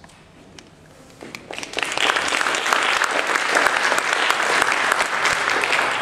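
Audience applauding: a few scattered claps at first, swelling into full applause about two seconds in, then dying away at the end.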